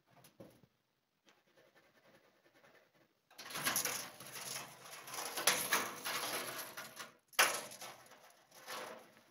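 Clear corrugated plastic roofing sheet rustling and crackling as it is handled and pressed on. The noise starts about three seconds in, with a sharp crackle near the end.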